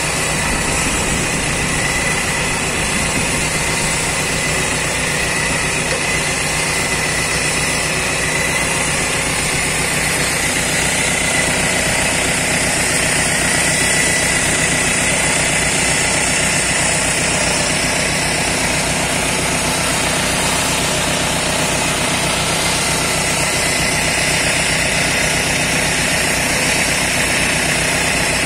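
Willys Jeep running steadily as its front winch slowly drags it up a muddy track, a low engine drone with a steady high whine on top.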